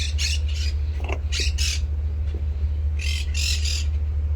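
Birds squawking in short runs of two or three harsh calls, three times, over a steady low hum.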